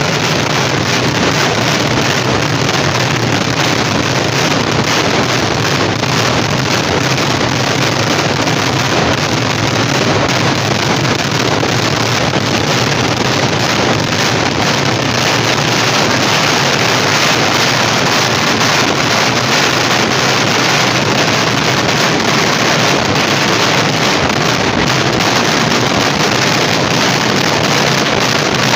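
Fireworks barrage: countless firecracker blasts so close together that they merge into one steady, unbroken roar.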